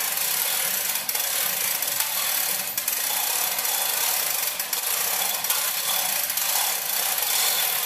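Chain-fall hoist being hauled to lift an engine: a steady rasping rattle of chain running through the hoist, with faint irregular clicks.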